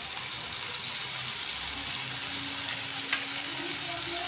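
Mutton chops deep-frying in hot oil in a kadai: a steady sizzle.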